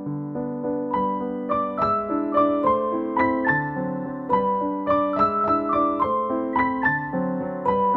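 Background music: a keyboard piece in a piano sound, held chords at first, then a melody of quick notes from about a second in.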